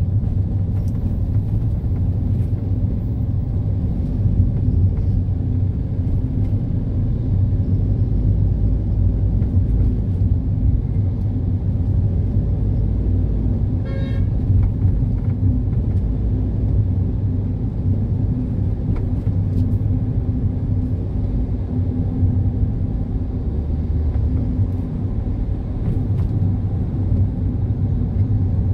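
Steady low rumble of a car driving through city traffic: engine and road noise. About halfway through, a short pitched tone sounds briefly.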